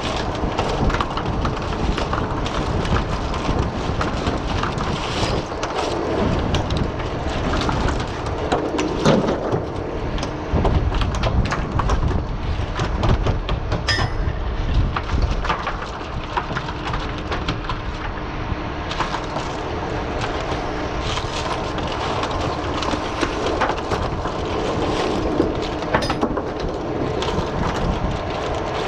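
Oysters and shells knocking and clattering on a wooden culling board as they are sorted by hand, many irregular clicks and raps, over the steady low rumble and hum of the dredge boat's engine.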